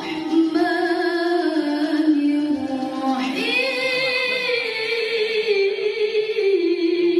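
A woman's voice reciting the Quran in the melodic tilawah style into a microphone, with long held notes and ornamented turns. About three seconds in, she climbs to a higher note and holds it.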